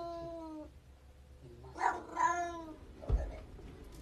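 Domestic cat meowing: a long drawn-out meow tails off about half a second in, and a second long meow comes about two seconds in. A low thump follows near the end.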